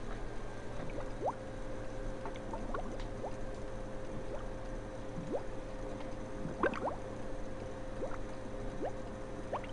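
A wooden spoon stirring a pot of thick stew: scattered wet squelches and small bubbling plops, over a steady faint hum.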